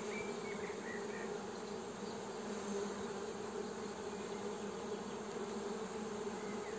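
Honeybee colony buzzing in an open hive during an inspection: a steady, even hum.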